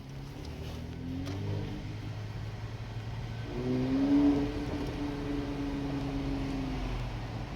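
Mercedes-AMG C43 coupe's twin-turbo V6 and exhaust revved while stationary in an underground car park. A short rev comes about a second in. A louder rev rises about three and a half seconds in, is held steady for a few seconds, then drops back to idle.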